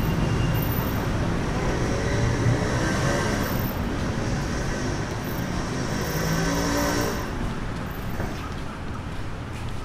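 Busy street traffic, with a motor vehicle engine passing close by in the middle and fading away after it.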